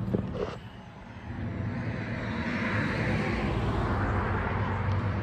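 A passing vehicle's noise swelling to a peak about three seconds in and easing off, over a steady low hum.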